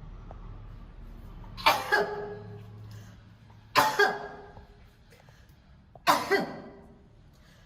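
A woman coughing in three short double bursts about two seconds apart, a reflex cough set off by the sutra neti cord in her nasal passage and throat.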